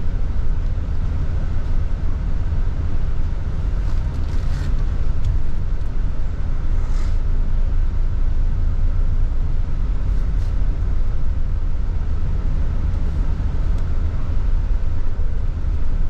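Bus driving along a city road, heard from on board: a steady low rumble of engine and road noise, with a couple of brief hisses about four and seven seconds in.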